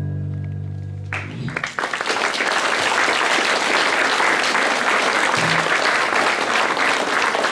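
A ukulele orchestra's final chord with a low bass note, held and fading, cut off about a second in. Audience applause then breaks out and carries on steadily.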